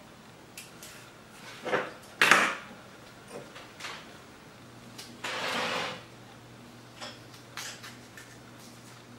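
Carving tools and a knife being handled at a table: several knocks and clatters of metal on a wooden cutting board, the loudest about two seconds in, and a short scraping rustle around five seconds in.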